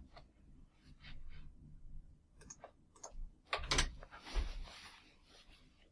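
A few scattered sharp clicks and light taps of handling at a desk, with a short rustle about four seconds in.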